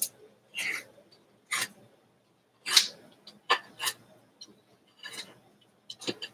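Paper being torn along the edge of a metal ruler, a series of short scratchy rips at irregular intervals as thin strips are trimmed off a collage background.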